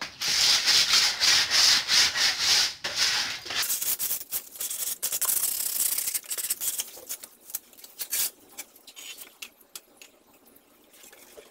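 Hand sanding of a white-painted wooden board with a sheet of sandpaper: quick back-and-forth scratchy strokes, about three a second, merging into a steadier rasp, then fading to faint scratches and ticks after about seven seconds.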